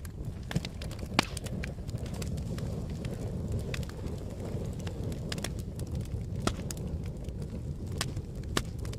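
Campfire crackling: irregular sharp pops and snaps over a steady low rumble, with the loudest pop about a second in and another near the end.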